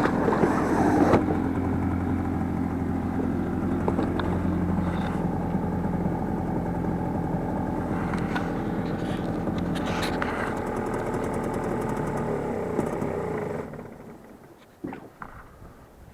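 Boat motor running steadily, then cutting out sharply near the end, followed by a few faint knocks.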